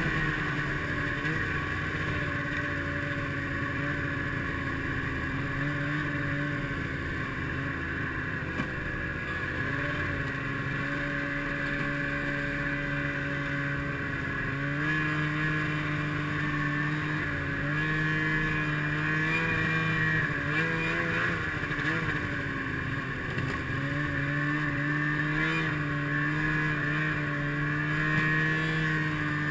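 Snowmobile engine running while the sled rides along a trail, its pitch stepping up about halfway through and dipping briefly then climbing again as the throttle is worked.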